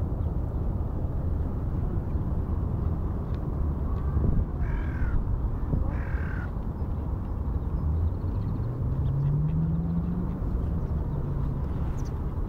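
A bird gives two harsh, caw-like calls about a second apart over a steady low rumble. Later a low hum rises slightly in pitch and fades.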